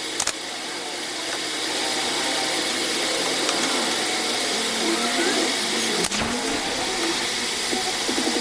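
A power tool running steadily with a whirring hiss, with a sharp click about six seconds in.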